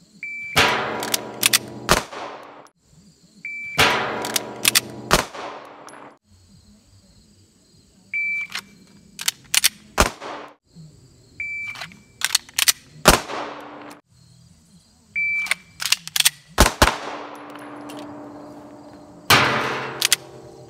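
Five strings of 9mm pistol fire from a Beretta 92 (Langdon Tactical Elite LTT). Each string is set off by a short high beep from an electronic shot timer and holds several quick shots, each shot ringing out after it.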